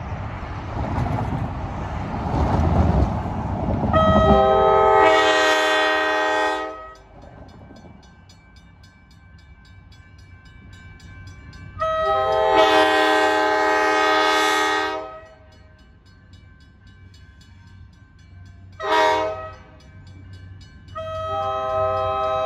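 Diesel freight locomotive's multi-chime air horn sounding the grade-crossing signal as the train approaches a crossing: two long blasts, a short one, then a final long one that is still going at the end. The first few seconds hold a low rumble before the horn begins.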